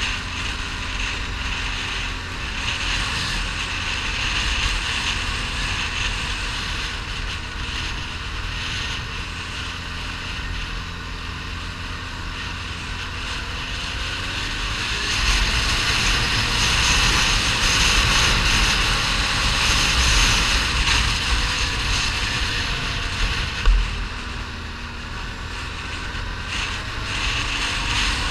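ATV engine running under way on a gravel track, with wind buffeting the microphone and tyre noise from the loose gravel; the hiss grows louder for a stretch past the middle. One short sharp knock comes near the end.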